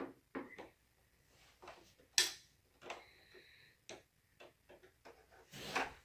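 Scattered small clicks and knocks from handling a white plastic iMac case, with a sharp click about two seconds in and a longer rustling knock near the end as the computer is lifted and stood upright.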